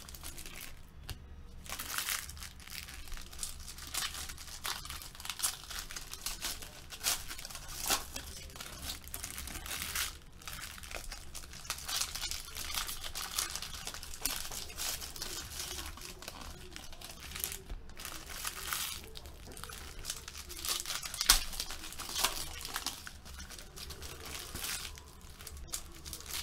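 Sports card pack wrappers crinkling and tearing as packs are ripped open, a continuous stream of crackles and rustles.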